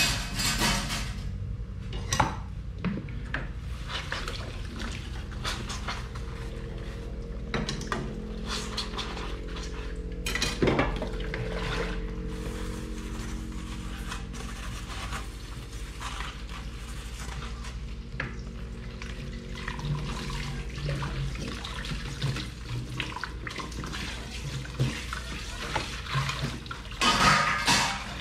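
Dishes being washed by hand at a kitchen sink: plates, pots and cutlery clink and knock against each other, with one louder knock about ten seconds in, and the tap runs in bursts, loudest near the end.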